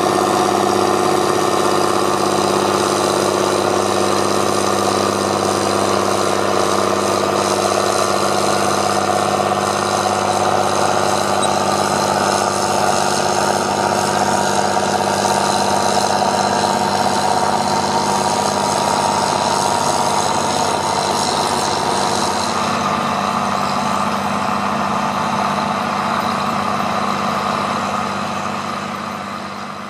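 Fendt tractor's diesel engine running steadily, fading out near the end.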